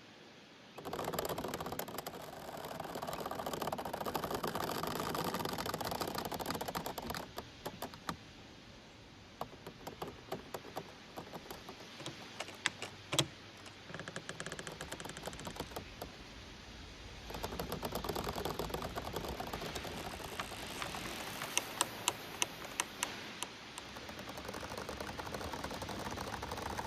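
Giant bamboo swaying in the wind: gusts of leaves rustling, and the stems creaking and knocking against each other in a scatter of sharp clicks, thickest between the two gusts.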